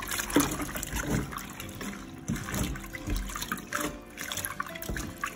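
Spinach leaves swished and rubbed by hand in a steel bowl of water: irregular sloshing and splashing as the leaves are washed.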